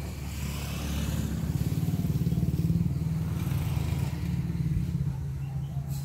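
A motor vehicle's engine running off-picture, a low steady hum that grows louder about a second in and eases off near the end.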